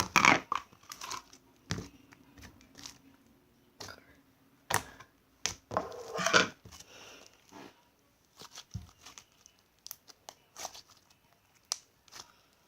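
Slime being poked and squished by hand, giving irregular sticky crackles and pops, with louder bursts near the start and around the middle and sparser clicks later.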